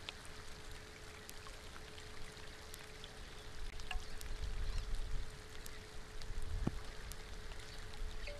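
Rain falling steadily onto a waterhole: an even hiss with scattered sharp drop ticks, growing louder for a few seconds in the middle. A faint steady hum runs underneath.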